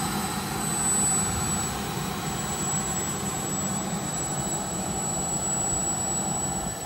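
Small turbine engine of a radio-controlled jet fighter in flight: a steady rushing engine sound with a thin high whine, swelling slightly about a second in and falling off near the end.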